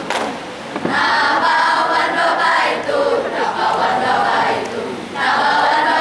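School choral-speaking group of many voices chanting in Malay in unison, half-spoken and half-sung, starting about a second in. The voices break off briefly near five seconds and then come back in together.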